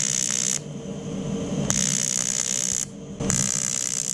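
Low-current (15 A) AC TIG arc from an Aurora PRO INTER TIG 200 AC/DC PULSE welder, buzzing and hissing as it tacks 0.2 mm aluminium can sheet. It is struck in short bursts: it stops about half a second in, is struck again for about a second, and again near the end.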